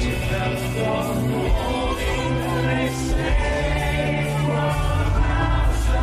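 Live rock band playing in a stadium, heard from among the audience, with a vocal melody and many voices singing along. The bass swells near the end.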